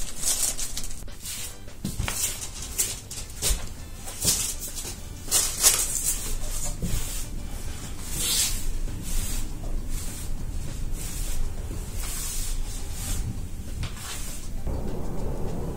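Broom bristles sweeping a floor in short strokes, a swish about every half second to second. Near the end the swishes stop and a steady low rumble takes over.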